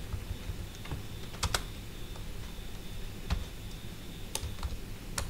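Computer keyboard being typed on in short, irregular runs of keystrokes, a few keys clicking louder than the rest.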